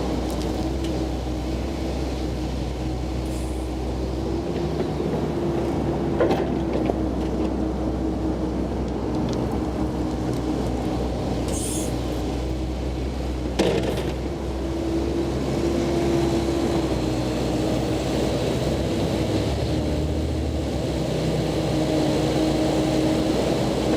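Komatsu PC88 mini excavator's diesel engine running steadily under working load, with a held tone over the engine drone. There are two sharp knocks, about six and fourteen seconds in.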